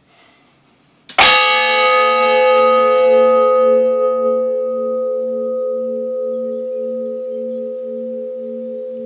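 Bronze church bell cast in 1926 struck once about a second in, then ringing on in a long fading decay, its low hum pulsing about twice a second.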